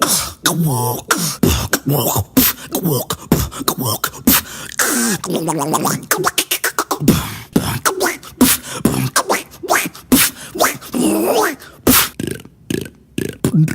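A beatboxer imitating sound effects with his mouth and voice: a quick run of sharp clicks and pops mixed with sliding vocal tones that sweep up and down in pitch.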